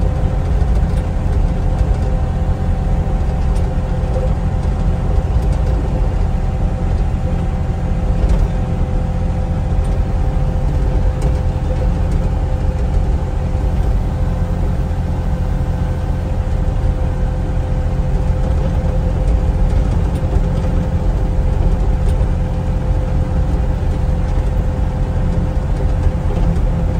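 Sany SY35U mini excavator's diesel engine running steadily, heard from inside the cab: a constant low drone with a steady whine above it.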